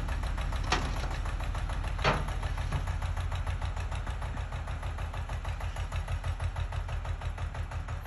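Eicher tractor's diesel engine running hard under load as it strains to pull a soil-laden trolley that is stuck, a steady low rumble. Two sharp knocks sound about a second in and two seconds in, and the rumble pulses more unevenly in the second half.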